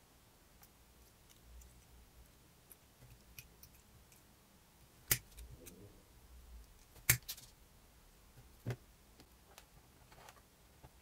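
Small metallic clicks and taps of needle-nose pliers gripping and bending thin steel wire, scattered and quiet, with three sharper clicks in the middle.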